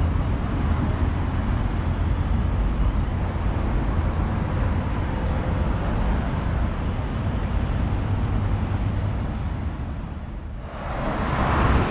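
Steady city-street traffic noise, heaviest in the low end, that dips briefly near the end before picking up again.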